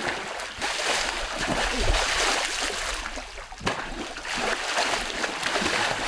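A large fish thrashing at the water surface as it strikes at bait held on a stick, making continuous churning splashes, with a fresh surge of splashing a little over halfway through.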